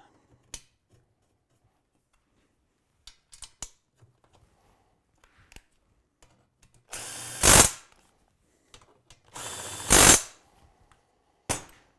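Cordless drill-driver running in two short spurts, about a second each and louder near the end of each, as it drives in the bolts that hold the front arm shaft between the suspension rails. Small metal clicks of bolts being handled come before it.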